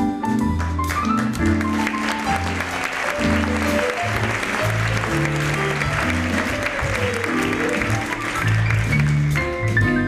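Piano playing, with an audience applauding over it from about a second in until near the end.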